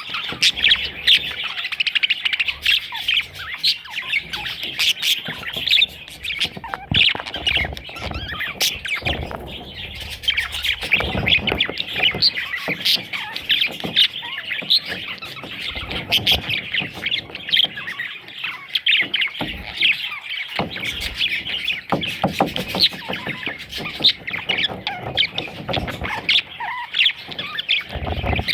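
A flock of budgerigars chattering continuously, with many short overlapping chirps and squawks and a few low bumps.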